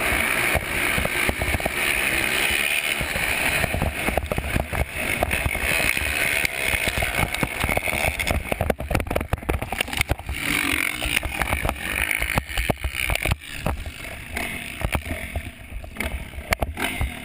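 Motocross dirt bike engine running hard at the start of a race, heard through a bike-mounted camera and buried in heavy wind buffeting and rattling. It grows quieter and more broken up over the second half as the bike slows.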